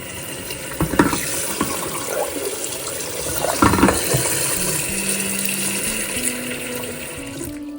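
Cold water running steadily into a pot of just-boiled tomatoes to cool them for peeling, with two short clatters about a second in and near the middle. The water stops just before the end.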